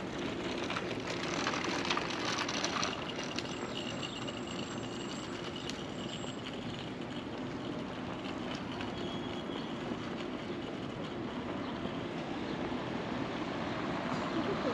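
Steady city street traffic noise, with a thin high-pitched squeal lasting about three seconds a few seconds in.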